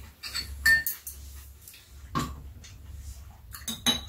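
Metal spoons and chopsticks clinking and scraping against ceramic bowls and cups at a meal, with two sharp ringing clinks near the end.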